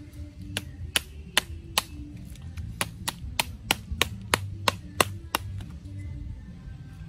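Sharp knocks, about three a second with a brief pause near two seconds in, as a short dark stick is struck down onto a cooked crab to crack its shell; the knocking stops about five and a half seconds in.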